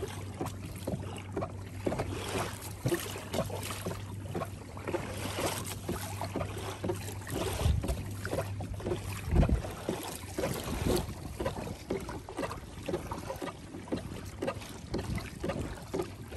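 Water lapping and splashing against the hull of a fishing kayak moving over open sea, in many short irregular splashes over a steady low hum. Two heavier low bumps of wind on the microphone come a little past the middle.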